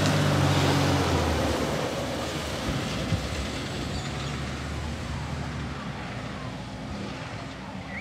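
Garbage truck's diesel engine running as the truck drives off, its hum fading steadily as it pulls away around a bend. A bird chirps once at the very end.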